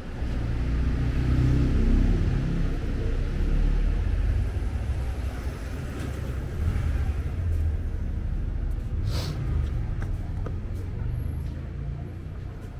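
Low engine rumble of a motor vehicle passing close by, swelling and fading over several seconds, with a short hiss about nine seconds in.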